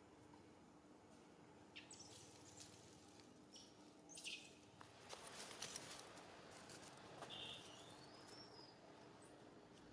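Faint outdoor ambience with a few brief high chirps and scattered soft clicks and rustles, over a low steady hum.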